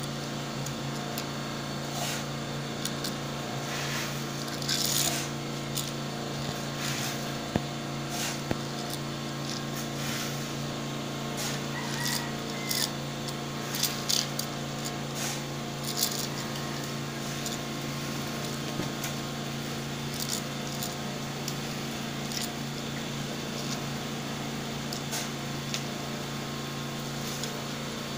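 Small toy car pushed and knocked about on a rough wooden board, giving scattered short clicks and scrapes, over a steady low hum.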